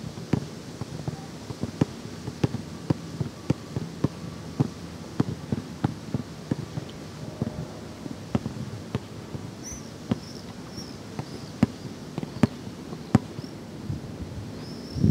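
A basketball being dribbled on a hard outdoor court, sharp bounces about two a second.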